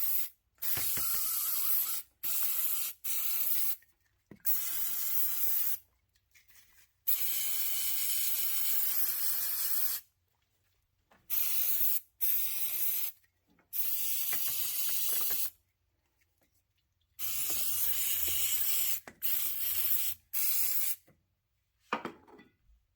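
Aerosol cleaner sprayed onto a removed throttle body in about a dozen bursts of hiss, from short squirts to one spray of about three seconds.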